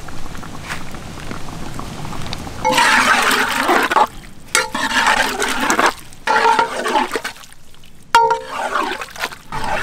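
Thick fish curry being stirred with a ladle in a large metal pot: wet sloshing, squelching strokes in several bursts starting about three seconds in, with the ladle scraping and knocking against the pot.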